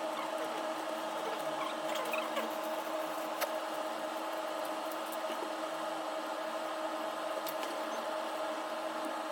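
A steady electrical hum from an appliance on the bench, with a few faint clicks.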